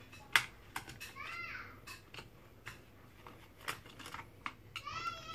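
Scattered metallic clicks and taps of a screwdriver working on an electric motor's housing during disassembly, the sharpest about a third of a second in. Two short meows from a cat cut across it, one after about a second and one right at the end.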